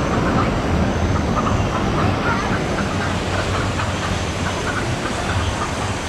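Man-made river-rapids ride channel: whitewater rushing steadily over rocks, with a low hum underneath.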